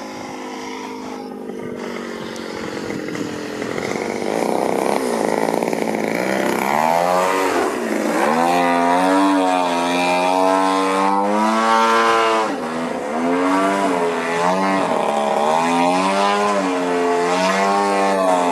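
Gasoline engine of a Hangar 9 Cap 232 80-inch RC aerobatic plane in flight. It grows louder as the plane comes closer over the first several seconds, then its pitch swings up and down repeatedly through the manoeuvres.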